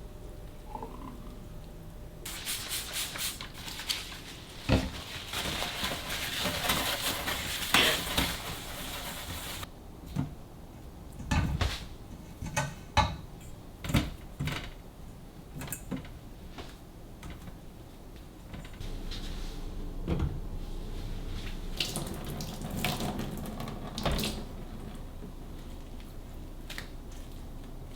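Kitchen tap running into a sink for several seconds, then shut off abruptly. Scattered knocks and clatter of dishes or utensils follow.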